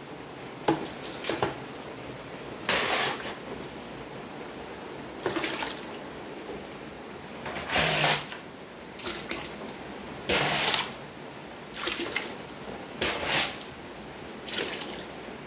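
Water splashing and pouring in about ten short bursts a second or two apart: shallow floodwater being scooped off a tiled floor and poured into a plastic bucket.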